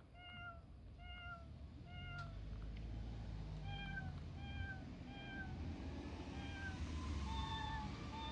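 Short recorded cat meows played as notes on a cat-sound piano app: about nine identical meows in small groups, each group pitched a step higher than the last.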